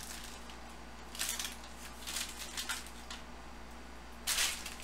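A foil trading-card pack wrapper is torn open and crinkles, and then the stack of cards is handled. The sound comes as a few short rustles, the loudest near the end.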